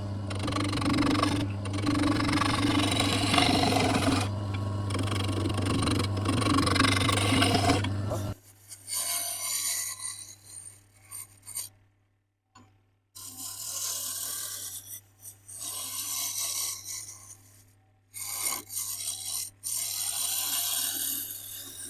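Wood lathe with a turning tool cutting into the spinning wooden blank: a continuous rasping scrape over the steady hum of the lathe motor, the blank still being roughed down from out-of-round. About eight seconds in the hum drops away and the cutting comes in separate passes with short breaks.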